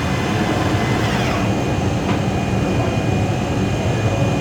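Lathe running steadily, a constant machine hum with a faint high whine over it.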